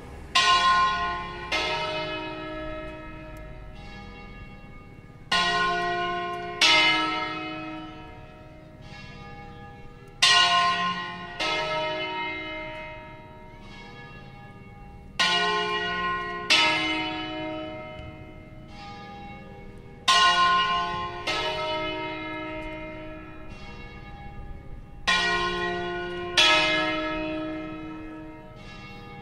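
Three church bells (E♭, F and G of a five-bell Veronese-style set) swinging and striking in a repeating round: a group of strikes about every five seconds, each note ringing on and dying away before the next round.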